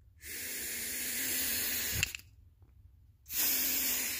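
Air blown by mouth into the fuel inlet of a Honda Foreman ATV carburetor held upside down, heard as two long, even hisses of about a second and a half each. This is a float needle valve check: upside down, the float drops and the needle opens, so air gets through.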